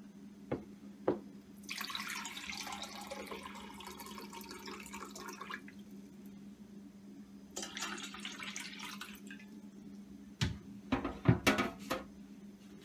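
Kitchen tap running into a glass measuring cup in two spells, then a few sharp knocks near the end.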